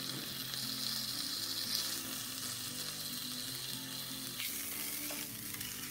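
Thick slice of smoked pork sizzling in olive oil with sliced garlic in a frying pan over low heat, a steady hiss that shifts about four seconds in as chopsticks move the slab.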